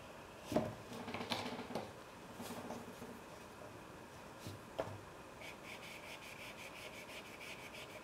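Small paintbrush rubbing and scrubbing on watercolour paper, lifting paint, with a knock about half a second in and another near five seconds, then a quick run of light, even scratchy strokes.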